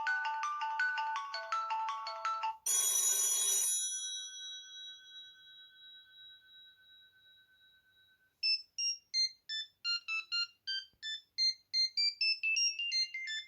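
Ringtone previews from a Sony Ericsson Xperia Active smartphone's speaker. A melodic tune cuts off about two and a half seconds in, a bright chime strikes and rings out slowly over several seconds, and then a quick run of short, high beeping notes plays from about eight seconds in.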